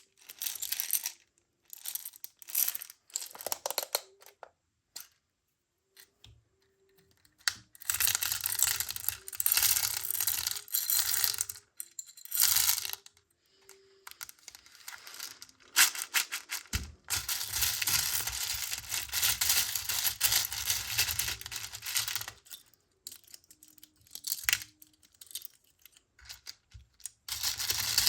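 Small shiny beads clattering and rattling against each other and a plastic toy in several long spells, with pauses between.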